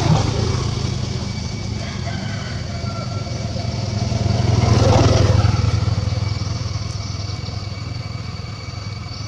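A motor vehicle's engine running steadily close by, growing louder around the middle and then easing off.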